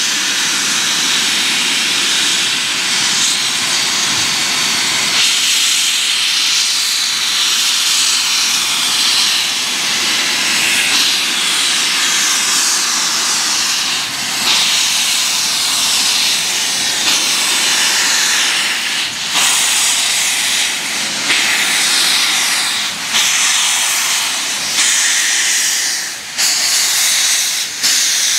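NZR Ja-class steam locomotive letting off steam in a loud, steady hiss. The hiss shifts abruptly a few times in the last ten seconds.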